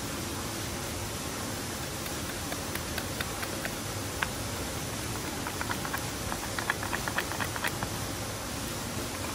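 Steady rushing of a river, with scattered light clicks and taps over it that come in a quick run between about five and a half and eight seconds in.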